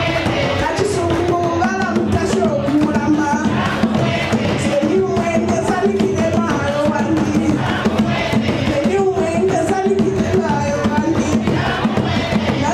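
A group of women singing a traditional song together, accompanied by steady beats on wooden, skin-headed hand drums.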